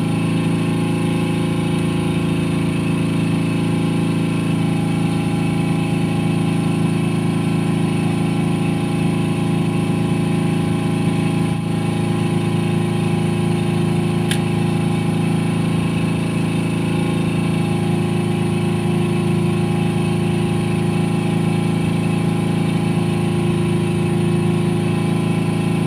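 A boat's engine running steadily with an even, unchanging low hum.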